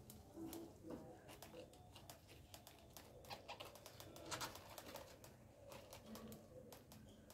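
Faint rustling and scratchy clicks as newborn rabbit kits squirm in a cardboard-box nest of towel and pulled fur, with a few brief low coos in the background.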